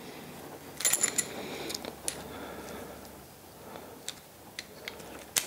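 Light metallic clicks and clinks of a small open-end wrench and a homemade bushing press tool being handled and turned while pressing the lower bushing out of a RockShox Monarch rear shock's eyelet. A quick cluster of clinks comes about a second in, then a few scattered single clicks, the last near the end.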